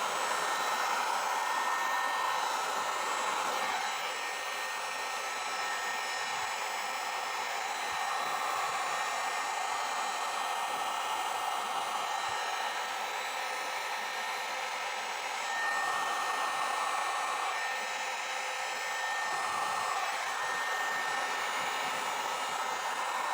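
Handheld hot-air dryer blowing steadily, a hiss with a faint whine, growing slightly quieter and louder at times. It is heating nairit contact cement on a sneaker insole and inside the shoe before gluing.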